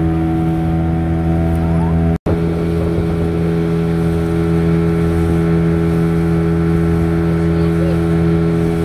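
Motorboat engine running at a steady speed, with an even, unchanging hum. The sound drops out completely for an instant about two seconds in.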